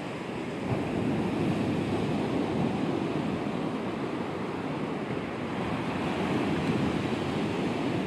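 Small sea waves breaking and washing up a sandy beach, a steady rushing surf that swells about a second in and again near the end.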